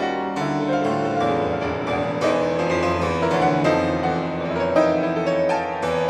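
A trio of soprano saxophone, violin and piano playing contemporary chamber music, the piano striking notes and chords every second or so over held tones.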